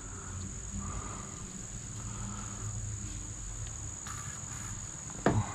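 Insects chirring steadily outdoors, a constant high-pitched buzz. Near the end a brief, loud sound sweeps sharply downward in pitch.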